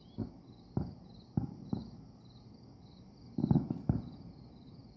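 Distant aerial firework shells going off: a few separate bangs in the first two seconds, then a quick run of pops about three and a half seconds in. Behind them, crickets chirp steadily in a high, regular pulse.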